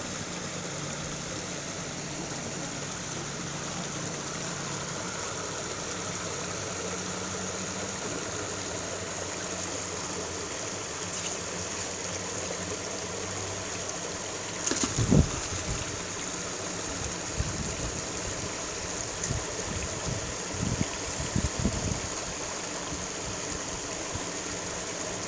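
Steady rushing of a small stream running over a little cascade. A loud low thump comes a little past halfway, followed by a few smaller knocks.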